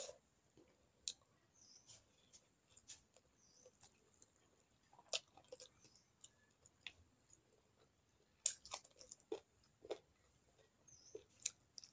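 Close-miked eating by hand: soft wet chewing and mouth clicks, coming as scattered, irregular ticks and smacks over a near-silent background, as mouthfuls of rice and fish curry are eaten.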